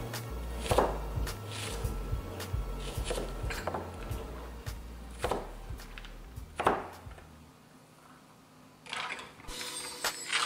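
Chef's knife dicing a white onion on a plastic cutting board: single sharp knocks of the blade on the board, a second or so apart. Near the end comes a soft scraping rustle as the diced onion is pushed together by hand on the board.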